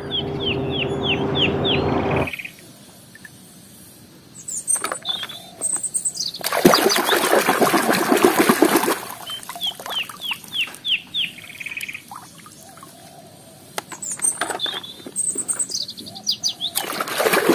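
Hands swishing and splashing toy vehicles in a plastic tub of muddy water, in two spells. Between them a small bird chirps runs of quick, repeated falling notes. For the first two seconds a heavy truck's engine runs steadily, then cuts off abruptly.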